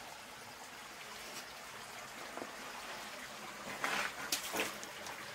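Faint steady trickle of water, with a few short sharp knocks or scrapes about four seconds in.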